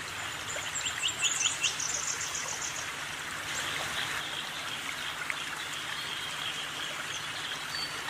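Steady rush of running stream water, with a bird giving a quick series of high chirps about a second in.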